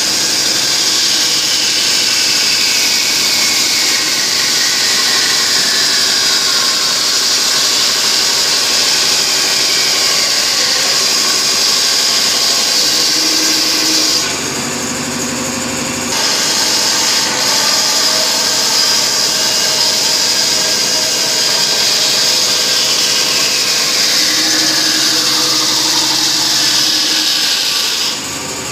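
Shop Fox W1729 bandsaw running and cutting a yellow cedar paddle blank: a loud, steady high whine with a saw-blade hiss, the pitch sliding down now and then as the feed changes. It drops quieter for about two seconds near the middle.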